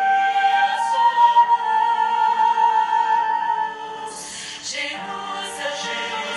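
Transverse flute playing a hymn melody, holding one long high note over a recorded choir and accompaniment. The flute stops about four seconds in and the choir carries on.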